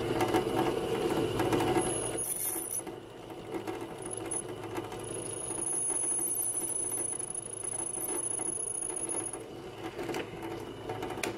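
Drill press running with a regular twist drill bit pressed into a hardened steel knife blade, the bit rubbing without cutting through. A thin, high, steady squeal from the bit on the steel comes in about four seconds in and holds until shortly before the end: the steel is too hard for the bit, which leaves only a little scratch.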